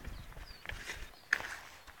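Young pheasants peeping faintly, a few short high falling calls, over sharp knocks and scuffles as a bird is caught through the hole in the wooden box.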